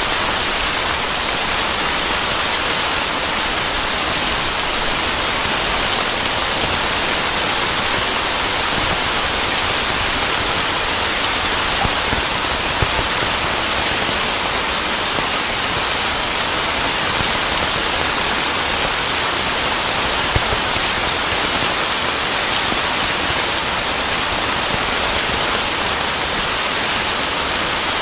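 Steady rain falling, an even hiss with a few slightly louder drop ticks; no thunder.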